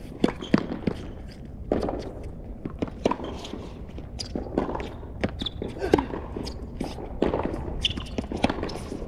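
Tennis rally on a hard court: sharp pops of rackets striking the ball and the ball bouncing, every second or so, with players' footsteps between shots.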